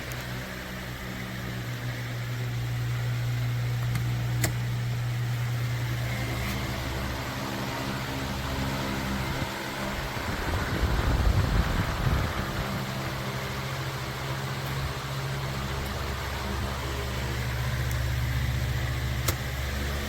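Electric fan motor running with a steady hum. About ten seconds in, the hum breaks into a louder, rougher patch for a couple of seconds, then settles back to the steady hum.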